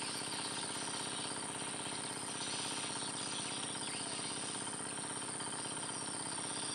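Insect chorus: a steady high-pitched trill over a denser, rapidly pulsing buzz.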